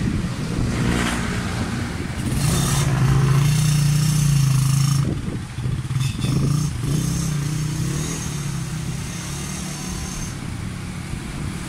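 Suzuki Raider 150 motorcycle's single-cylinder four-stroke engine revving as the bike pulls away, loudest about three to five seconds in. Its note dips briefly midway, then runs on steadily and grows fainter as the bike moves off.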